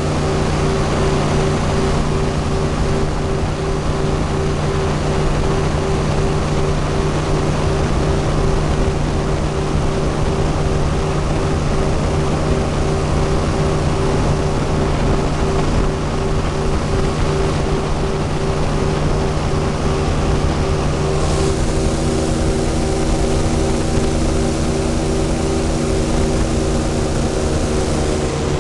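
Airboat's engine and caged air propeller running steadily at speed. About three-quarters of the way through, the engine note shifts and the sound brightens.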